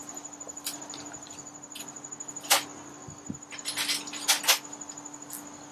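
Scattered light clicks and knocks of hands and tools handling parts under a Jeep's hood, with one sharper knock about two and a half seconds in and a quick cluster of clicks near four seconds, over a faint steady hum.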